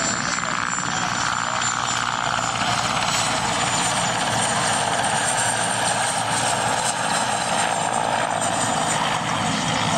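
Mi-8 military transport helicopter flying low past, its main rotor and twin turboshaft engines making a steady, loud noise.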